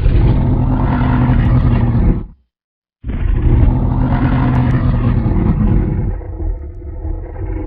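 Two deep dinosaur roar sound effects: one of about two seconds, then, after a short silence, a longer one of about four and a half seconds that fades and turns duller near the end.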